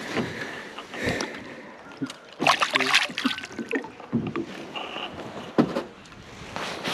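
A largemouth bass released back into the lake: a splash of water lasting about a second near the middle, amid handling noises, with a sharp knock a little later.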